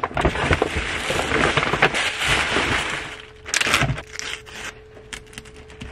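Paper and plastic crinkling and rustling as a gift bag is packed with tissue paper: dense crinkling for about three seconds, a shorter burst about three and a half seconds in, then only light scattered rustles.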